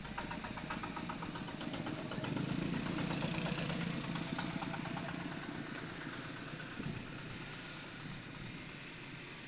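A small engine running with a fast, even pulse, growing louder about two seconds in and then slowly fading toward the end.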